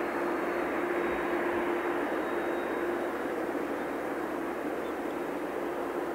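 Boeing 767-300 jet engines running at taxi idle: a steady rumble of noise with a constant hum running through it.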